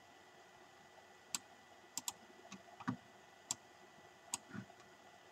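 Computer mouse clicking: about eight short sharp clicks spread over a few seconds, with a quick double click about two seconds in.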